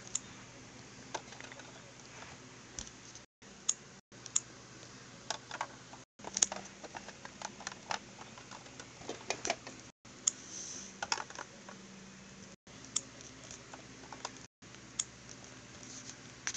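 Scattered light clicks and taps of small plastic toy figures being handled against a plastic toy truck, over a faint steady hum. The sound drops out to dead silence for a moment several times where the recording is cut.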